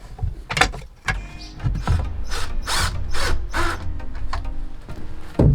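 Woodworking tool noises: sharp clicks and knocks, then a run of four rasping strokes about 0.4 s apart, with a low rumble underneath.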